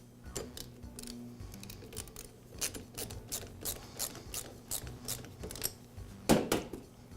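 Hand tool clicking while fastening the mower's transmission belt guard: a run of evenly spaced sharp clicks, about three a second, then one louder knock near the end.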